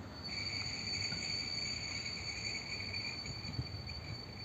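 Shrill steady wheel squeal from a WM-15A track trolley and its ballast wagon rolling slowly through a curve, several high tones sounding together. It sets in just after the start, over a low rumble.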